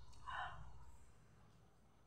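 Faint eating sounds: one short noise about half a second in, over a low steady hum.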